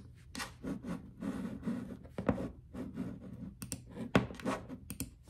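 Typing on a slim white computer keyboard: irregular key clicks and taps at an uneven pace, with some scratchy rubbing between the keystrokes.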